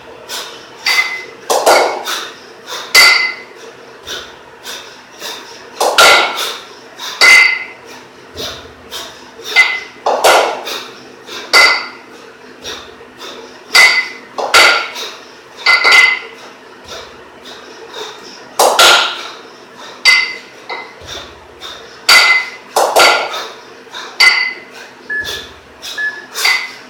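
A pair of 12 kg competition kettlebells clanking and clinking against each other with a ringing metallic tone, over and over through two-arm long cycle reps. The knocks come in a repeating cycle of about four seconds, each with a heavier rushing burst.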